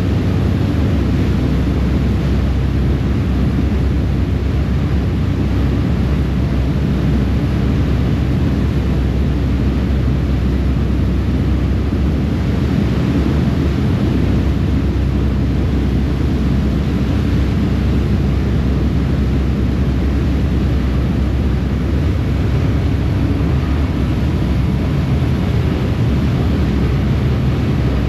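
Harbour ferry's engines droning steadily under way, with the rush of water from the churning wake behind the stern.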